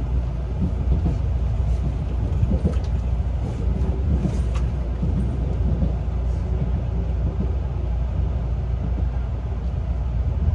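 JR limited express Shinano electric train running, a steady low rumble.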